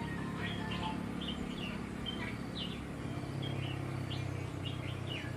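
Small birds chirping over and over in short, quick falling notes, over a steady low hum.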